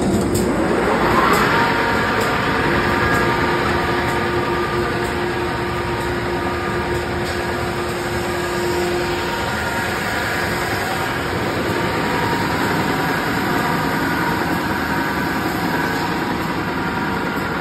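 Wide belt sander starting up: a motor whine rises over the first second or so, then the machine runs on with a loud, steady noise and an even hum.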